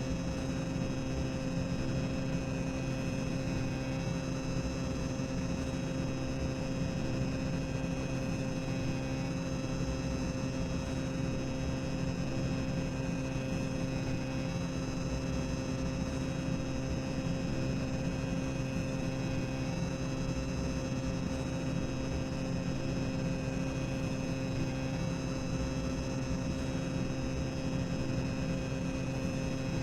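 Boiler-room ambience sound effect: a steady low machinery rumble with a constant electrical-style hum, unchanging throughout.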